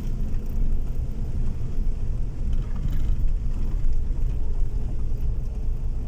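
Steady low rumble inside a moving car: engine and tyres running on a torn-up, unpaved road surface.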